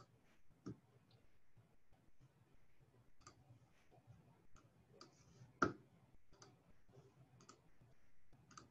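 Faint scattered clicks at a computer as windows are switched, about ten in all, the loudest a little past halfway.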